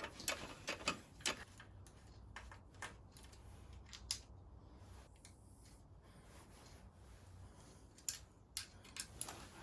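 A few faint, irregularly spaced light clicks and taps over a low steady hum, several in the first few seconds and a few more near the end.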